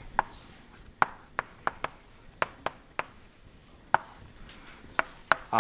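Chalk writing on a chalkboard: about ten sharp taps as the chalk strikes the board, unevenly spaced, with faint scratching between.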